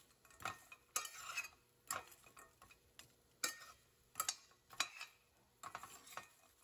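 Metal spoon stirring chicharrones (fried pork rinds) in a stainless steel pan: faint, irregular scrapes and clinks of metal on metal, one every half second to a second.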